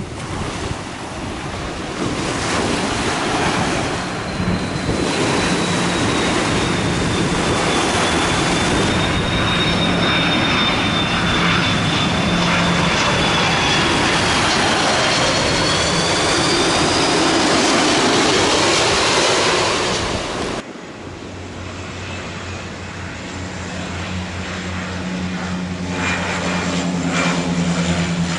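An airliner's turbine engines running loud: a rushing noise with a high whine that drifts in pitch, swelling to a peak and then cutting off abruptly about twenty seconds in. After it comes a quieter, steady aircraft engine hum that grows louder near the end.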